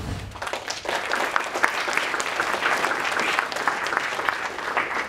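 Audience applauding, the clapping starting about half a second in and dying away near the end.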